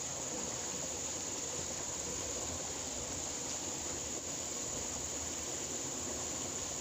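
Steady outdoor ambience: insects keeping up a constant high-pitched drone over an even rushing hiss.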